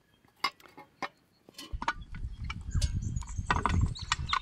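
A few sharp metal knocks as a shovel scrapes hot coals off a cast-iron camp oven lid. Then, a little before halfway, a loud low rumble comes in suddenly, with birds chirping over it.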